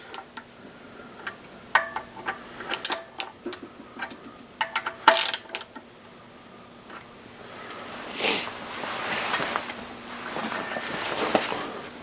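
Hand tools working the camshaft bearing-cap nuts on an engine head, turning them a quarter turn at a time. Sharp metallic clinks, a few with a short ring, come in the first half. Near the end there are several seconds of denser clicking and scraping as the wrench ratchets.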